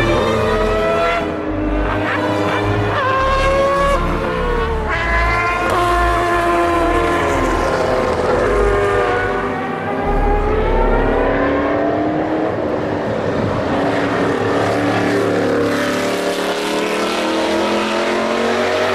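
Racing car engine accelerating hard, its pitch climbing and dropping sharply at each gear change, then easing off and building again in long slower sweeps.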